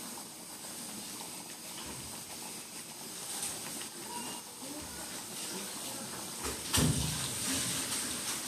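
Prawn sambal simmering in a metal wok over a gas burner, a steady bubbling hiss. About seven seconds in, a metal ladle knocks sharply against the wok and stirs the thick sauce.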